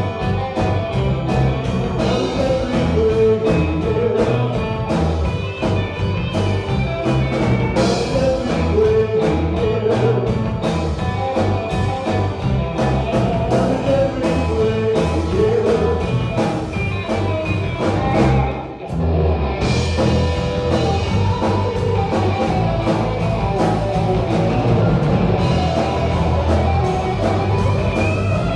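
Live rock band playing: drum kit, electric guitar, bass guitar, strummed acoustic guitar and keyboard. The level stays steady apart from a brief break about two-thirds of the way through.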